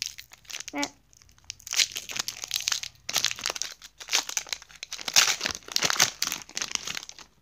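Foil wrapper of a Pokémon card booster pack crinkling and tearing as it is opened, in irregular crackly bursts.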